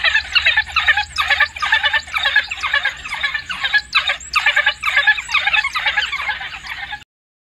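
African wild dogs (painted wolves) giving rapid high-pitched squeaking, twittering calls, many overlapping in quick succession. The calls cut off suddenly near the end.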